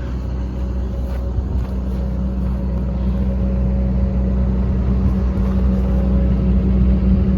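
Komatsu PC200LC-8 excavator's six-cylinder diesel engine running steadily at idle, growing slightly louder over the few seconds.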